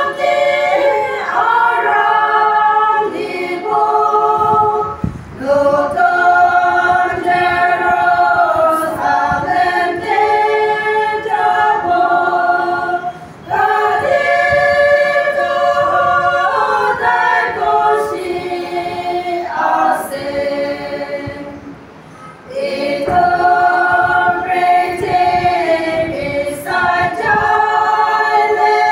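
A choir of women singing together unaccompanied, in long held phrases with brief pauses between them, about a third and about three quarters of the way through.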